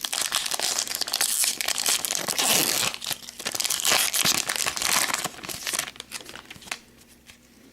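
Hockey card pack wrapper being torn open and crinkled by hand, a dense crackling that dies down after about six seconds to a few light handling clicks as the cards are taken out.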